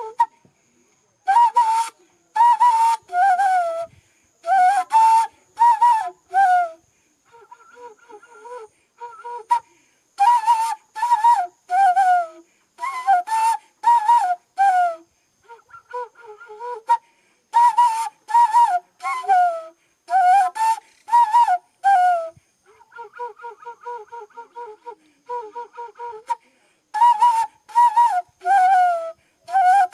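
Music: a solo flute-like wind instrument plays short phrases of separate notes, alternating with softer, quicker runs of notes.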